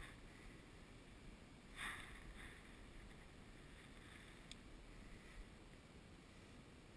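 Near silence: faint outdoor background hiss, with one brief soft rustle about two seconds in and a faint tick later.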